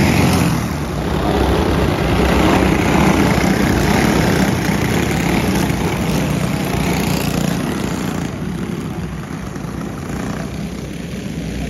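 A pack of junior clone-class racing karts, with small four-stroke single-cylinder clone engines, running hard past on a dirt track. The engine noise eases about eight seconds in as the pack pulls away into the turn.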